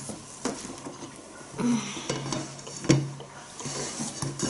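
Apple slices sliding off plastic cutting boards and dropping into a bowl of batter, with a few sharp knocks of the boards against the bowl and table; the loudest knock comes about three seconds in.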